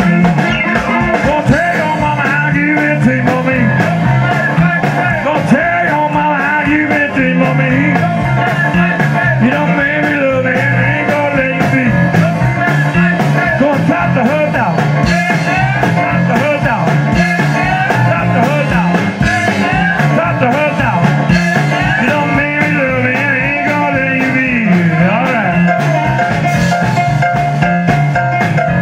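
Live blues band playing, with an amplified harmonica lead bending notes over a steady stepping bass line and drums.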